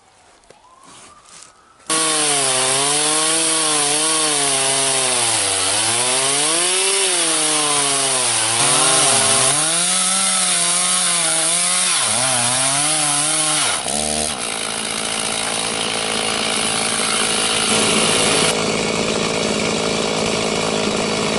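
Stihl gas chainsaw on a micro chainsaw mill, ripping lengthwise down through a standing black cherry log. It comes in suddenly about two seconds in, and its engine pitch rises and dips as the chain bogs and frees in the cut. About two-thirds of the way through it changes abruptly and then holds a steadier pitch.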